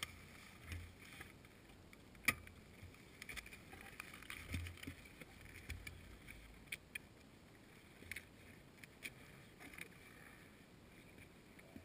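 Faint, scattered clicks and knocks with a few dull low thumps: handling and movement close to the fallen motorcycle.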